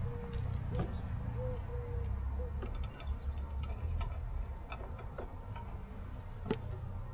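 Scattered light clicks and knocks of a wooden Stevenson screen (thermometer shelter) being opened and its thermometers handled, over a steady low rumble.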